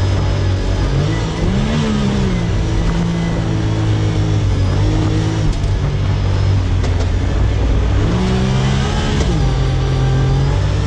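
Side-by-side UTV engine heard from on board, running steadily under load in the sand, with the revs climbing and dropping back twice: about two seconds in and again near the end.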